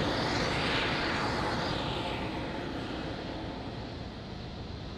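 Distant rumble of the explosion beneath SpaceX Super Heavy Booster 7, an unexpected ignition during Raptor engine testing: a continuous noisy roar, loudest about a second in, slowly dying away.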